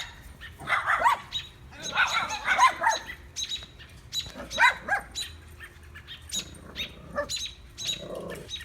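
Shih tzu puppy yapping in short bursts while small birds chirp sharply around it. The birds' calls are alarm calls at the dog.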